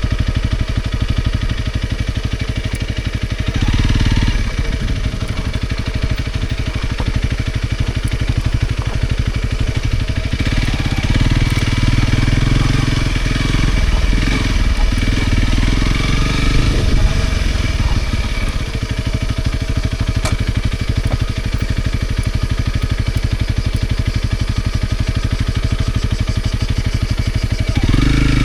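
Honda CRF250 Rally's single-cylinder engine running steadily at low revs, with the engine getting louder about four seconds in, through the middle, and again near the end.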